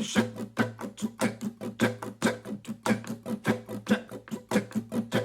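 Acoustic guitar strummed down and up on one held chord, about five strokes a second, with some strokes hit harder than others to give the rhythm a swing.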